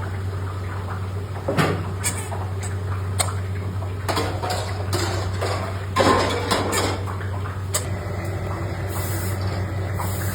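Steady low machine hum with irregular knocks and clattering of hard parts, a busier run of clatter in the middle.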